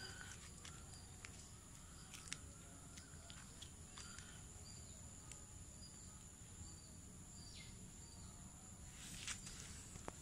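Faint outdoor ambience: a steady high-pitched insect drone, with scattered short faint bird chirps and a few soft clicks.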